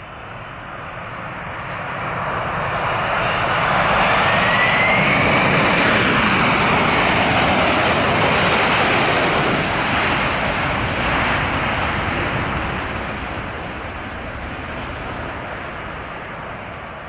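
Four jet engines of a Boeing 747 freighter on its landing roll. The sound swells to a loud peak with a whine rising in pitch about three seconds in, as the engines spool up, typical of reverse thrust. It then fades as the jet slows and moves away.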